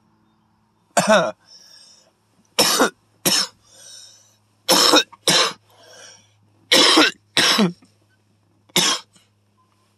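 A man coughing hard from a large hit of cannabis smoke: about eight harsh coughs, mostly in pairs, with quieter breaths drawn in between.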